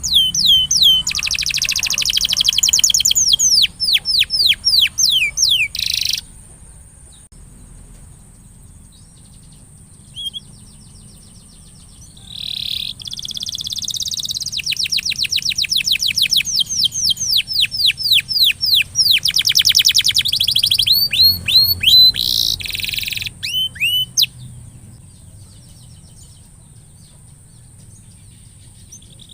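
Domestic canary singing in two long phrases of rapid, repeated downward-sweeping trill notes, the first over the first six seconds and the second from about twelve to twenty-four seconds in, with quiet gaps between. A faint steady high-pitched tone runs underneath.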